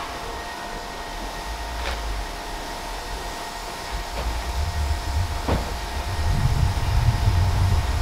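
Electronic sound from a homemade synthesizer-style circuit board: steady high hum tones with a few sharp clicks. A low rumble swells in from about halfway through and is loud near the end.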